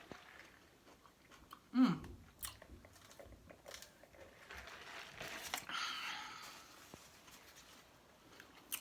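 Close-up chewing and mouth smacking of a person eating a roasted duck leg, with scattered small clicks. A brief falling vocal sound comes about two seconds in.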